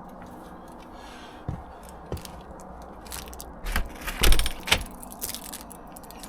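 A string of clicks and knocks from the door and its Yale Conexis L2 smart lock being locked, with the densest, loudest rattle of clicks a little past the middle.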